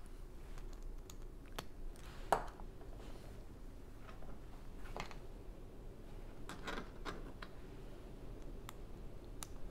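Small plastic Lego pieces clicking and tapping as a window frame and its glass pane are handled, fitted together and set down on the table, with one sharper click a little over two seconds in.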